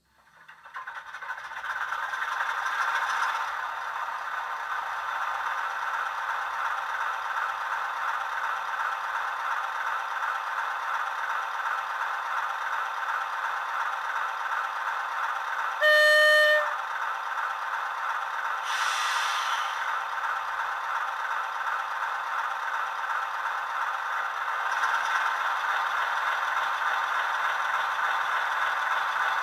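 A Soundtraxx Econami sound decoder's diesel engine sound, played through a model Class 47 locomotive's small speaker, runs steadily with no bass. There is one short horn blast about halfway through and a brief hiss a few seconds later. Near the end the engine note rises slightly as the locomotive starts to move.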